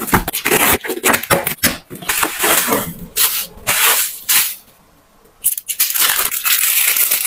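A cardboard box being opened and a bubble-wrapped plastic bottle pulled out and unwrapped: plastic wrap crinkling and rustling with sharp crackles, pausing briefly about two-thirds through before more rustling.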